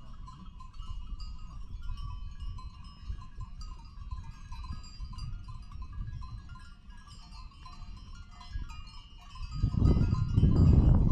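A flock of grazing sheep bleating, with wind buffeting the microphone throughout; a strong gust near the end is the loudest part.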